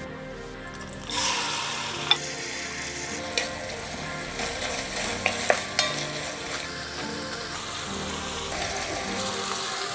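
Food frying and sizzling in a pan as it is stirred, with scattered clicks and scrapes of a utensil against the pan. The sizzle starts abruptly about a second in, over soft background music.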